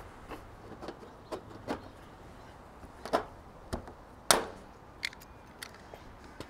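Hand pop-rivet gun setting rivets in a steel barge capping: a series of short metallic clicks as the handles are squeezed, with a sharp snap a little past four seconds as a rivet mandrel breaks off.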